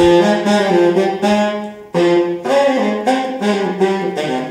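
Saxophone music: melodic phrases of held notes, with a short break about two seconds in.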